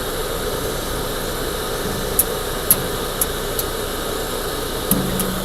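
Steady mechanical background hum, with a few faint light clicks in the middle.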